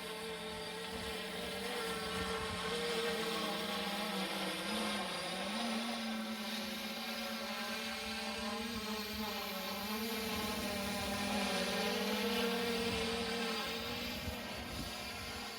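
3DR quadcopter drone hovering and flying with a steady propeller buzz whose pitch wavers up and down as the motors adjust, dipping briefly about five seconds in. It grows louder and softer as it circles the microphone.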